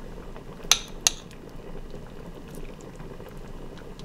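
Two sharp clinks of a metal spoon against a ceramic plate or bowl, about a third of a second apart, over a steady low background hiss.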